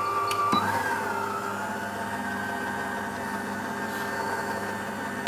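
Electric stand mixer running, its dough hook kneading flour with water being added for bread dough. The motor gives a steady whine that rises slightly in pitch about a second in and then holds.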